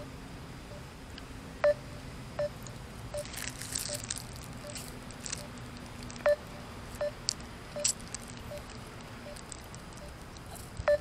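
A phone's outgoing-call tone: short low beeps repeating about twice a second while the call tries to connect and gets no answer. A few louder sharp clicks and some soft slurping through a drinking straw come over it.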